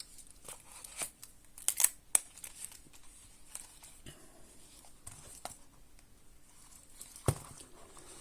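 Quiet handling of a leather knife sheath and pocket knife: soft leather rustling with scattered small clicks and taps, a cluster of them about two seconds in and one sharper click near the end.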